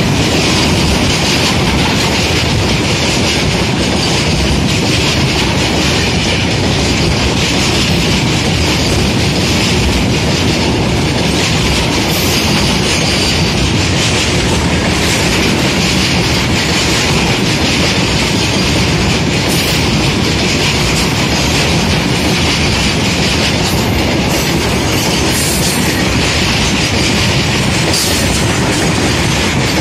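Freight train's wagons rolling past at speed, steel wheels clattering over the rail joints in a loud, unbroken rush of noise, with a few sharp clicks along the way.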